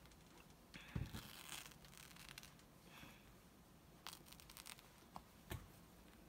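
Faint rustling and scraping of small ironed-on fabric appliqué pieces being peeled by hand off an appliqué sheet they have stuck to. There is a soft knock about a second in and another near the end.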